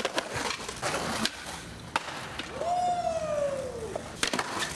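Skateboard wheels rolling on rough pavement, with several sharp clacks of the board striking the ground in the first second and a half, again at about two seconds, and near the end. Partway through, a long tone slides down in pitch.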